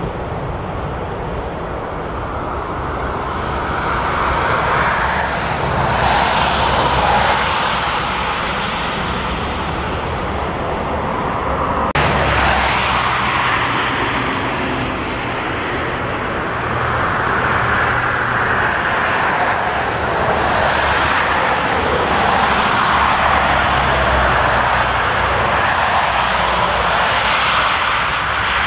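Jet airliner engines running loud at close range on the runway, a steady roar that swells and fades. It breaks off abruptly about twelve seconds in, and a second twin-engine airliner's noise takes over as it comes in to land, rising and falling as it passes.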